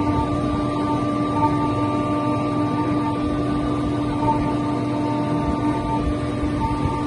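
CNC vertical milling machine cutting a block with an end mill under flood coolant: a steady machining hum with a higher tone that comes and goes, over the hiss of coolant spray.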